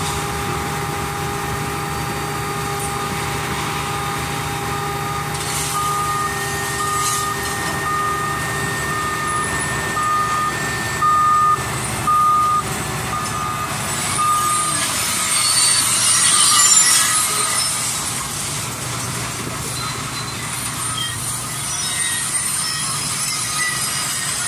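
Semi truck engine running steadily while the end-dump body is raised to tip a load of scrap metal. A backup alarm beeps about once a second for some eight seconds midway, followed by a stretch of hissing and rattling, the loudest part, about two-thirds through.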